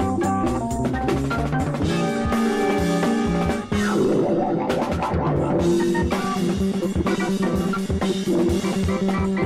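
A rock band's recorded music, with a drum kit and guitar playing over held notes.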